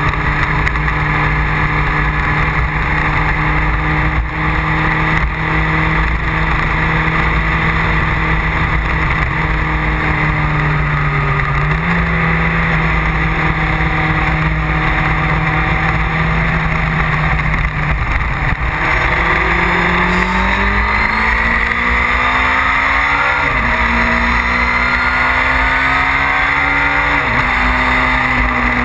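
Motorcycle engine heard from an onboard camera, holding a steady note for most of the time, then accelerating with rising pitch in the last third, broken by two sharp drops in pitch as it shifts up a gear. A steady rush of wind and road noise runs underneath.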